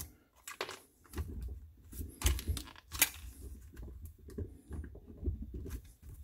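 The plastic manifold of a Yamada NDP-15FPS air diaphragm pump being wiggled and pried upward by hand to work it loose: scattered plastic clicks and knocks at irregular times over a low handling rumble.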